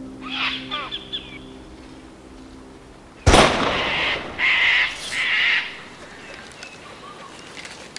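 Birds calling, then a single sharp handgun shot about three seconds in, followed by two harsh bird squawks.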